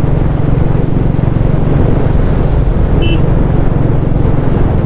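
Motorcycle engine running steadily while riding, with road and wind noise. A short horn beep sounds about three seconds in.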